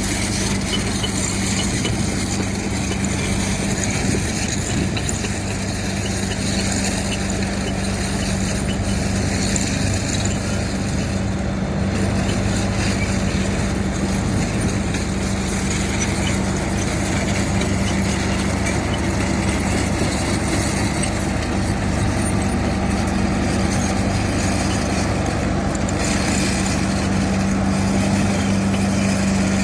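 Diesel engine of heavy earthmoving machinery running steadily with a constant deep hum, with no change in speed.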